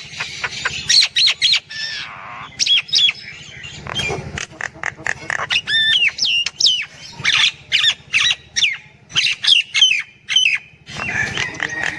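Myna calling: a fast, varied run of sharp clicks, whistled notes that slide down in pitch, and a harsh squawk.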